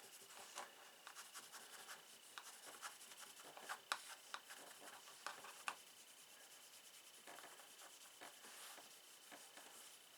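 Nevr-Dull polish wadding rubbed against the metal of a Zippo knife: faint scratchy rubbing in short strokes, with a few sharper clicks around the middle.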